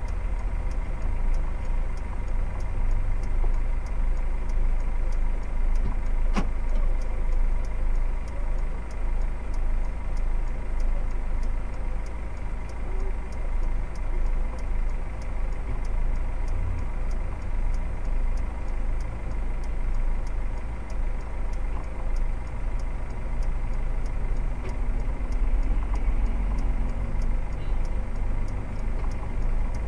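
Steady low rumble of a car idling at a standstill, heard from inside the cabin through a dashcam microphone, with one sharp click about six seconds in.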